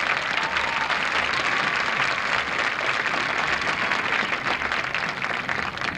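Crowd in the stands applauding, a dense steady clapping at the end of a piece by a marching band.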